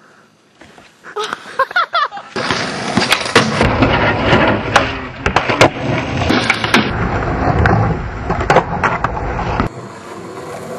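Skateboard wheels rolling loudly over asphalt, with repeated sharp clacks of the board popping and landing. The rolling starts about two seconds in and drops away near the end.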